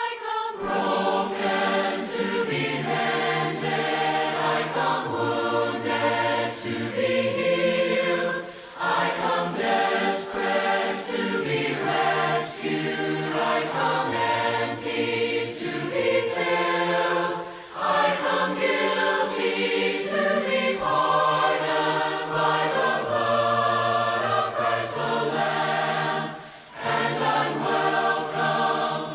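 A group of mixed voices singing a hymn a cappella in harmony, with no instruments, as is usual in Church of Christ worship. The phrases break briefly for breath about every nine seconds.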